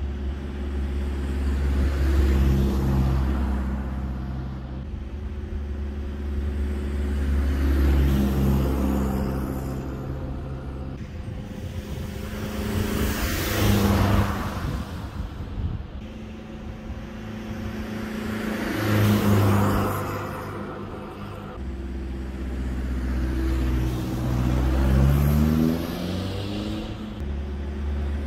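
Peugeot 206's 2.0 HDi four-cylinder turbodiesel driving past with its exhaust valves closed, held at about 2000 rpm and then about 3000 rpm. The engine sound swells and fades several times as the car passes, and near the end the pitch rises as it revs up.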